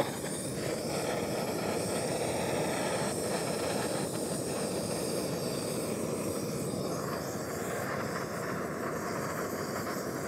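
Handheld gas torch fitted with a Searzall diffuser, its flame burning with a steady rushing hiss as it sears the surface of a steak.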